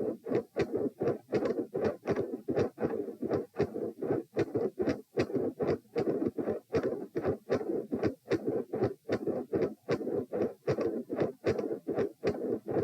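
Human heart sounds recorded lying down during repeated Valsalva manoeuvres: a steady, quick run of beats with a rushing noise filling the gaps between them.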